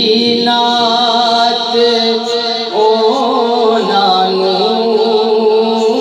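A man singing a Punjabi naat in long, drawn-out melodic notes, shifting to a new phrase about three seconds in.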